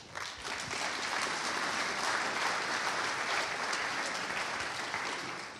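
Audience applauding, a steady clapping that starts at once and fades out near the end.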